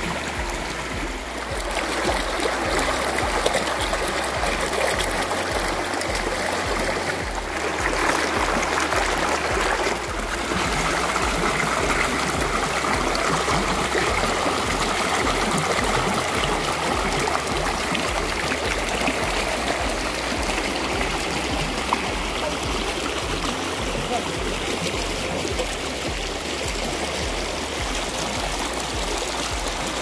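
Shallow rocky stream flowing over stones, a steady rush and burble of water running through small riffles.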